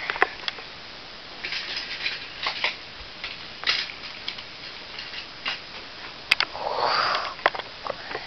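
Toy trains on plastic track: irregular light clicks and rattles, with a brief soft rushing sound about seven seconds in.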